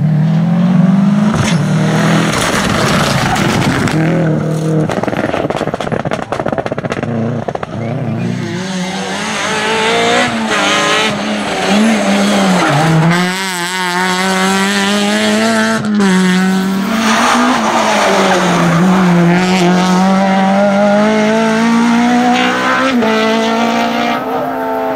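Rally car engines at full throttle on a tarmac stage, one car after another. The engine note climbs high and drops back several times as the cars shift and brake.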